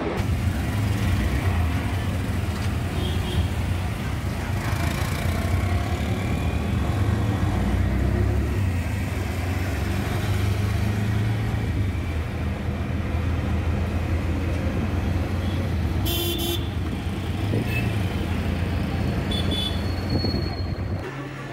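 Auto-rickshaw engine running with a steady low drone, heard from inside the cab in city traffic. Horns toot a few times, the loudest a sharp blast about three-quarters of the way through.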